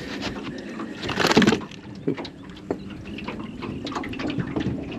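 Water splashing and sloshing, with a louder splash about a second in and small knocks and clicks of handling around it.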